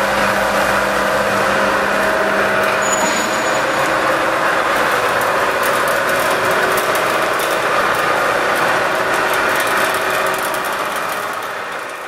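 Concrete vibrator paver running: a steady engine and machine noise with a few faint steady tones, fading out near the end.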